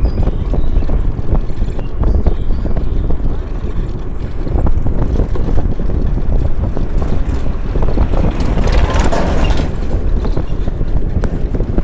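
Wind buffeting the microphone over the noise of travel along a road: a heavy, constant low rumble with crackles, and a louder rushing swell about eight seconds in.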